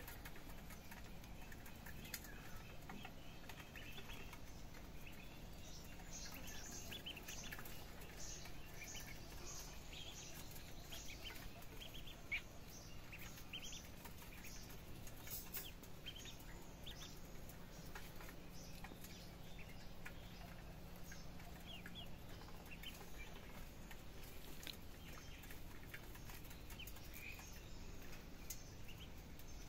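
Birds chirping faintly in the background: many short, high chirps scattered throughout, over a low steady hum.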